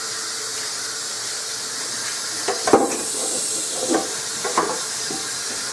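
Kitchen tap running into a sink as a steady hiss of water. A few knocks come about two and a half seconds in and again near the end as dishes are handled in the sink.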